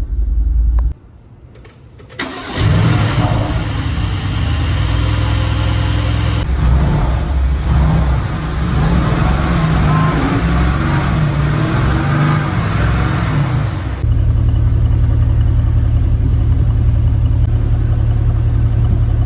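Mercedes-AMG GT's M178 twin-turbo V8 started and running after new spark plugs, with the sound cutting abruptly between takes; it settles into steady running for the last few seconds.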